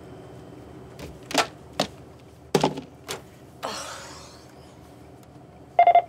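Several sharp knocks and clunks at a checkout counter, a short rustle, then a brief pitched tone just before the end.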